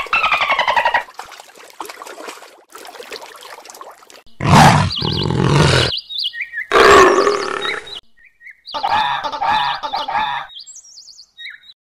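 A string of different animal calls, cut one after another: pitched calls at the start, two loud, deep calls around the middle, then a fast pulsing call and short high chirps near the end.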